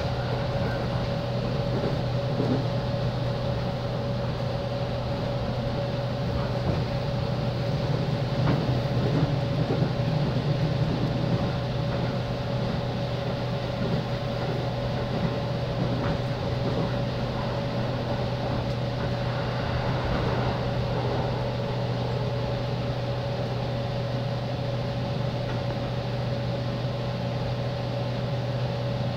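On-board sound of a JR East 205 series electric commuter train: a steady low rumble and hum with a constant mid-pitched tone over it. It swells slightly for a few seconds near the middle, with a few faint knocks.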